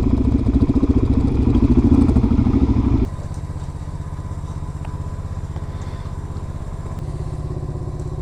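Motorcycle engine running under throttle, then dropping abruptly about three seconds in to a quieter, steady idle.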